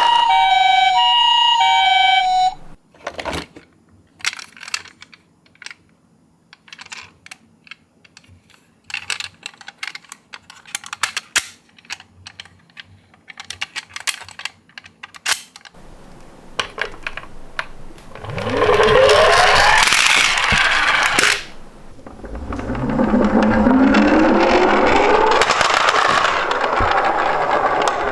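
A two-tone ambulance siren alternates high and low for about two seconds and cuts off. Scattered light clicks and taps of toy cars follow. Then come two rolling rushes from die-cast toy ambulances running down a slope, each a few seconds long and rising in pitch as the cars speed up.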